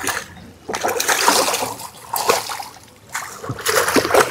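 A large catfish thrashing and splashing in the water as it is being landed, in two bursts: one about a second in and another near the end.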